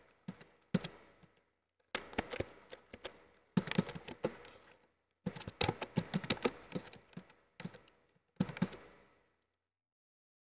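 Typing on a computer keyboard: runs of quick keystroke clicks in several bursts with short pauses between, stopping about nine seconds in.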